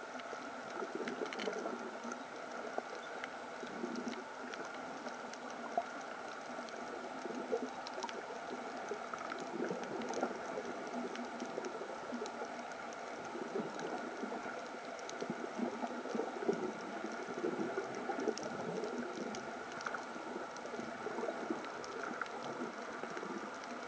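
Underwater sound picked up by a camera on a coral reef: a steady wash of water with bubbling and a scatter of faint clicks.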